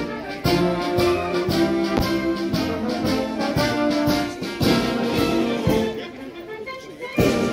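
Military brass band playing, with a steady beat about twice a second. The music dips about six seconds in, and a loud accent comes near the end.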